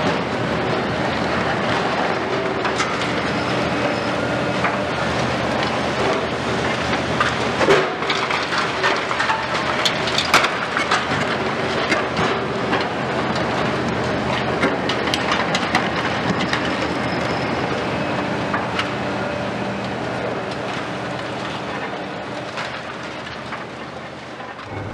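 High-reach demolition excavators at work: steady diesel engine hum under a dense clatter of cracks and snaps as concrete is crushed and debris falls, with a few louder cracks about a third of the way through. The noise eases off gradually toward the end.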